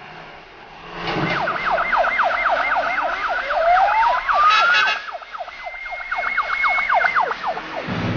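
CFA fire truck siren sounding a fast yelp, about five falling sweeps a second. A slow rising wail overlaps it in the middle, with a brief blast about halfway, then a held high tone before the siren cuts off near the end.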